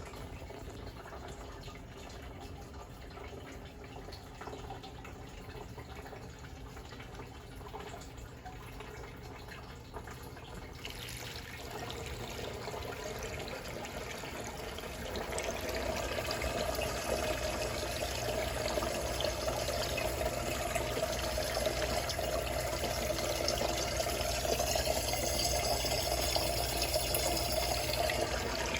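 Water rushing and swirling steadily in a DIY vortex fountain, driven up by a pump in its base, over a low steady hum. It grows louder about a third of the way in and again about halfway.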